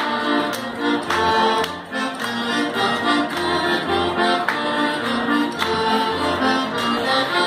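Bavarian folk dance music led by accordion, with a steady oom-pah bass beat.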